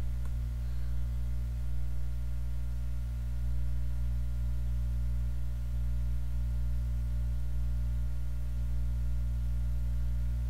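Steady low electrical hum with a faint hiss underneath; it does not change, and nothing else is heard.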